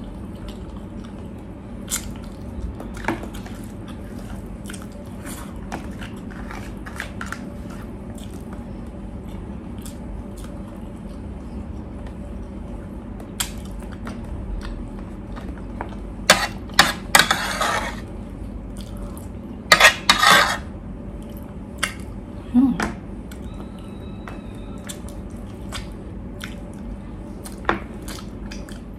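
Close-miked eating of pork ribs by hand: chewing, lip smacks and sucking at the bones, with scattered sharp clicks and the odd clink of cutlery on a plate. Two louder, longer sucking sounds come a little past the middle.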